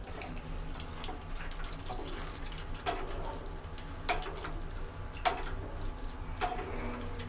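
Peeled hard-boiled eggs deep-frying in oil over low heat, a steady bubbling sizzle with a low hum under it. A light click comes a little more than once a second.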